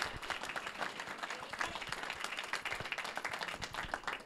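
Audience applauding: a room full of people clapping.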